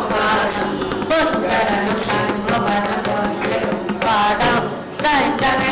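Carnatic devotional singing by a group of women, accompanied by a mridangam, with bright jingling strokes keeping time.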